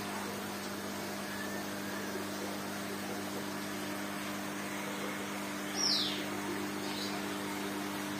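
Steady hum and hiss of aquarium pumps and filters running. Near six seconds in, a short high chirp falls in pitch, followed about a second later by a fainter one.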